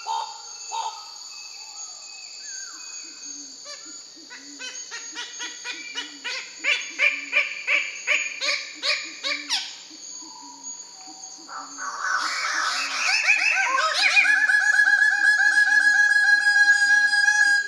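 Goldie's bird-of-paradise calling: a run of loud, rapidly repeated calls, then from about twelve seconds a louder rising chatter that settles into a long, fast, buzzing trill, over a steady high drone of insects.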